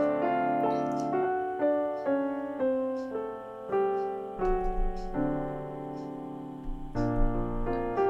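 Instrumental background piano music: a gentle melody of held notes, one after another.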